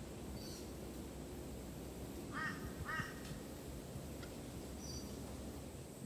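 Rainbow lorikeet giving two short, harsh screeching calls about half a second apart, a little over two seconds in, with a few faint high chirps before and after.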